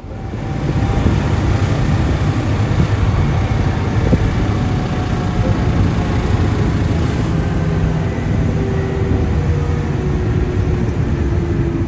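Tour truck driving across sand, its engine running steadily with a dense low rumble.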